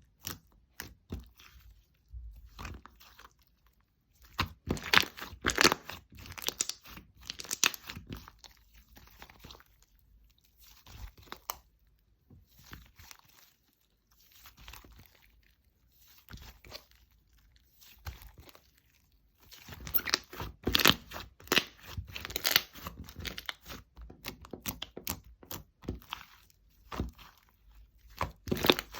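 Hands squeezing, stretching and pressing slime, making crackly, crunchy popping and clicking sounds. It comes in two louder spells of handling with quieter, sparser crackles between.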